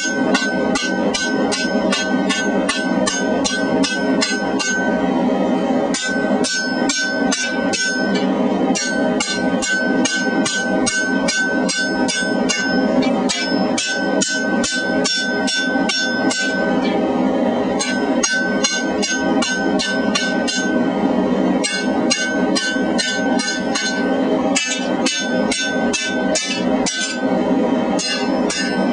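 Air hammer with a Hoffi-style crown die striking hot flat bar stock in bursts of rapid, even blows, about five a second, with brief pauses between bursts, over a steady hum.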